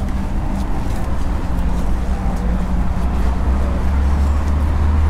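Steady low rumble of city road traffic, engines and tyres running continuously.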